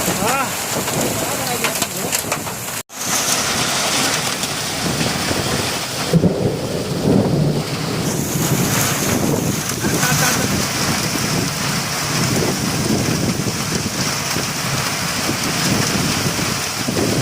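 Heavy rain falling steadily, with a low rumble of thunder about six to eight seconds in. The sound cuts out abruptly for a split second about three seconds in.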